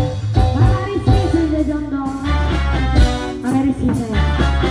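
Reog Indramayu (bleknong) ensemble music: a sung melody that bends and wavers in pitch over repeated drum strokes and percussion.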